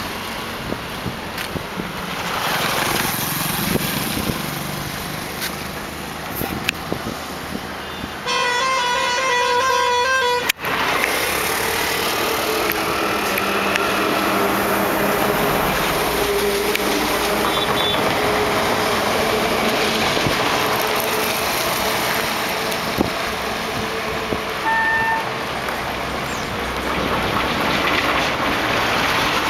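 Road traffic of motorbikes, scooters and cars passing steadily. About eight seconds in, a vehicle horn sounds in rapid pulses for about two seconds, and later two short horn toots are heard.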